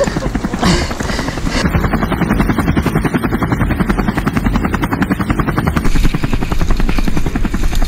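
Helicopter rotor chopping in a rapid, steady beat.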